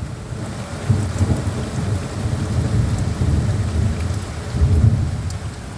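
Thunder rumbling over steady rain. The low rumble swells about a second in and again shortly before the end.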